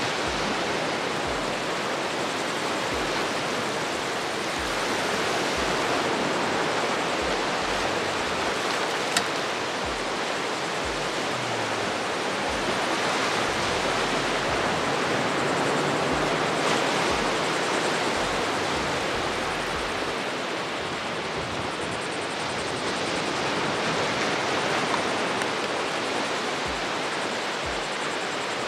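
Ocean surf washing steadily onto a beach, a continuous noise that swells and eases every few seconds, with irregular low thumps underneath and one sharp click about nine seconds in.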